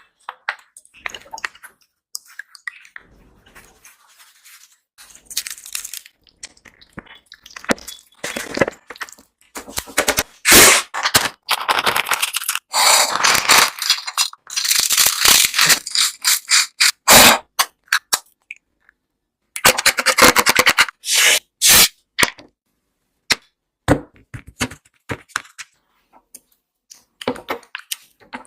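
Kitchen food-preparation handling noise: crackling, rattling and scraping in irregular bursts with short pauses, busiest through the middle.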